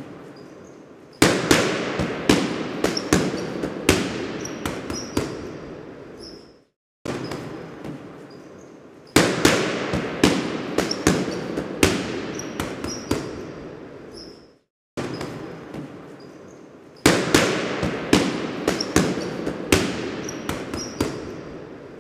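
Sharp bangs and cracks in a repeating loop. Each pass opens with a sudden loud bang, followed by a string of cracks that fade away over about six seconds, then cuts off briefly before starting again, about every eight seconds.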